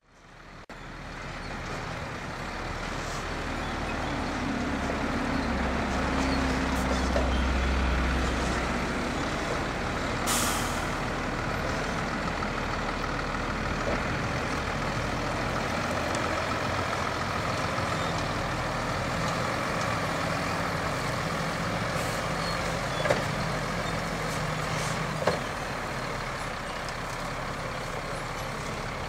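Heavy lorry's diesel engine running steadily as it moves slowly. A short hiss of compressed air from the air brakes comes about ten seconds in, and there are two sharp knocks near the end.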